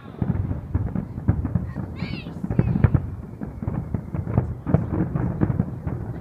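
Fireworks crackling in a rapid, irregular stream of sharp pops, with a brief high squeal about two seconds in.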